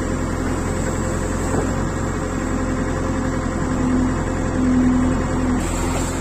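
JCB 3DX backhoe loader's diesel engine running steadily, heard from the operator's cab as the backhoe levers are worked, with a tone that comes and goes from about two seconds in.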